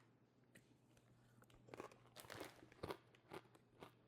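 Faint crunching of a chip being bitten and chewed: a handful of short crunches starting about two seconds in.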